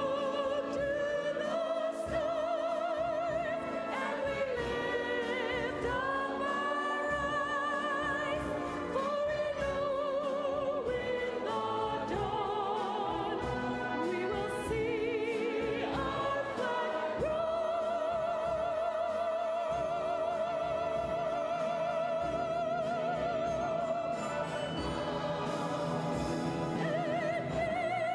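Choir and orchestra performing, with a high voice singing over them in strong vibrato. A little past the middle the voice holds one long note for several seconds.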